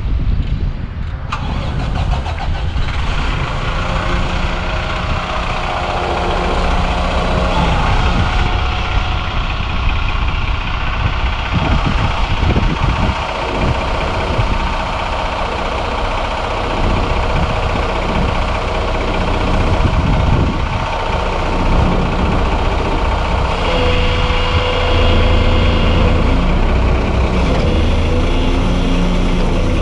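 The 330 hp Cummins ISL inline-six diesel of a 2007 Autocar garbage truck running steadily while the McNeilus front-loader arms are worked by its hydraulics. About four-fifths of the way through the engine gets louder and a steady whine joins in for a few seconds.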